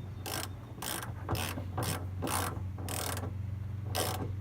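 Ratchet wrench with a 13 mm socket worked in short back-and-forth strokes, about eight rasping ratchet runs, tightening a nut on the starter solenoid's positive cable terminal.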